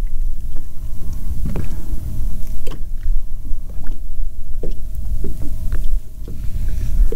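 Steady low rumble of wind and water noise around a small boat on open water, with a faint steady hum and a few light clicks scattered through it.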